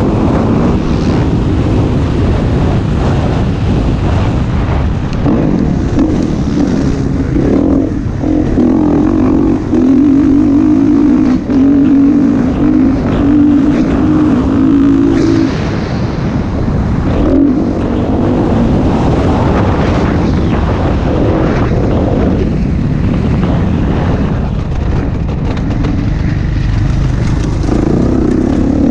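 Motocross dirt bike engine running hard under race riding, heard close from the rider's helmet camera. Its note holds steady at high revs for several seconds in the middle, then drops away and picks up again as the bike brakes and accelerates.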